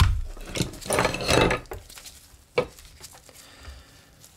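Handling noise on a cloth-covered bench: a thump as a multimeter is set down, a rustling scrape about a second in, and a single sharp click a little later as its test leads are handled.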